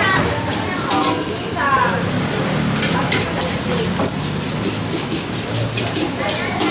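Egg fried rice sizzling in a hot steel wok while a metal ladle stirs and scrapes it against the pan, with scattered clinks of the ladle on the steel.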